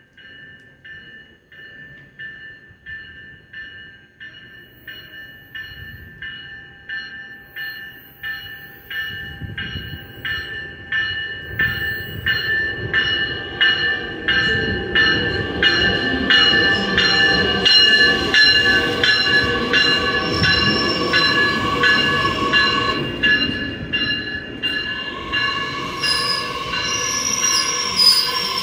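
A Metra Electric bi-level electric commuter train pulling into a station. Its bell rings about one and a half strokes a second and grows louder as the train approaches, over a rising rumble of wheels on rail. Near the end the wheels squeal as the train slows.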